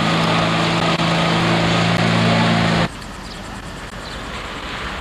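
A steady mechanical drone, several low hum tones over a broad hiss, that cuts off abruptly about three seconds in. A quieter, even outdoor background noise follows.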